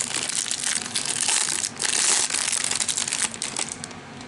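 Plastic wrapper around a stack of trading cards crinkling and tearing as it is pulled open by hand. The crinkling is dense for about three seconds, then dies down to a few light clicks.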